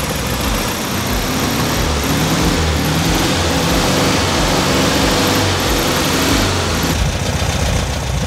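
Air-cooled flat-four engine of a 1970 VW Beetle running during carburettor adjustment. It runs a little louder from about two seconds in and eases back near seven seconds; afterwards the idle is judged to have risen slightly.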